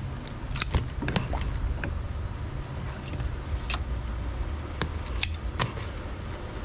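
Metal tongs clinking and tapping against a stainless steel cooking pot as fish is lowered into boiling water: a string of sharp, irregular clicks over a steady low rumble.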